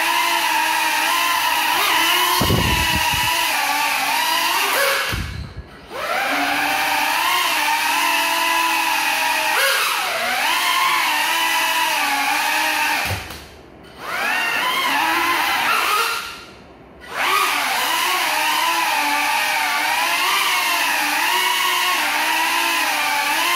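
Tiny FPV drone's motors whining as it flies on broken propellers, the pitch wavering up and down with the throttle. The whine cuts out briefly three times, and there are a few low thumps.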